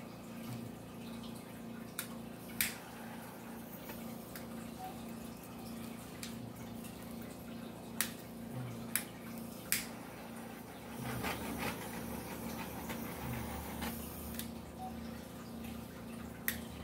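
A small handheld butane torch being got going to pop air bubbles in a poured acrylic painting. Sharp igniter clicks come several times, and a steady hiss of gas and flame starts about two-thirds of the way through. The torch does not stay lit long. A faint, evenly pulsing low hum runs underneath.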